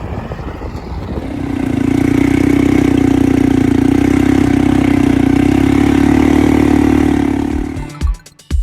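An engine revs up about a second in and runs steadily at high speed, then winds down near the end as music begins.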